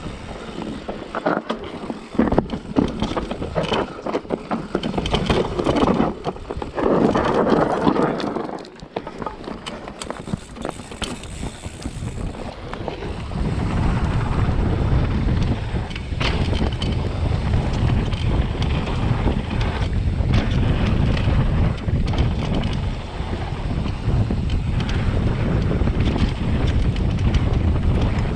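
Mountain bike riding down a trail: the tyres rattle over rough ground with many knocks and clicks, and wind buffets the microphone. The wind rumble grows heavier about halfway through.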